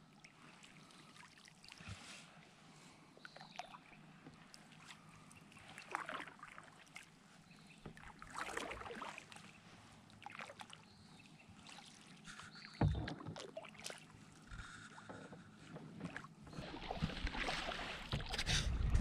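Kayak paddle strokes dipping and pulling through lake water, soft irregular splashes every few seconds. A sharper knock about two-thirds through, and the splashing gets busier and louder near the end.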